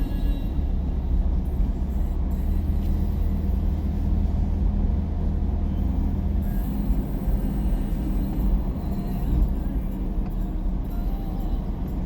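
Mahindra Bolero Neo SUV on the move: steady low engine and road rumble, with a low drone that eases off about six and a half seconds in.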